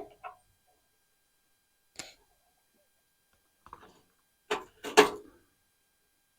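A few short clicks and knocks from tools and parts being handled: one about two seconds in, a faint cluster near four seconds, and the loudest pair near the end.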